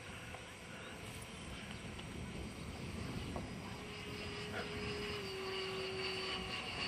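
Electric ducted fan of a HobbyKing BAE Hawk RC jet whining in flight overhead. A steady whine comes in about halfway through, drops slightly in pitch and grows louder toward the end.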